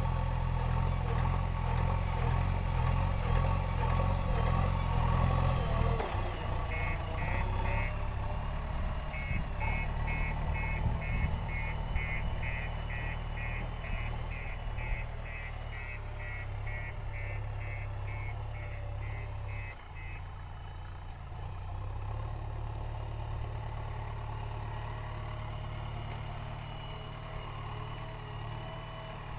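JCB 3DX backhoe loader's diesel engine running under load, easing to a lower, steadier hum about six seconds in. Its reversing alarm beeps steadily, about two beeps a second, from about seven to twenty seconds in.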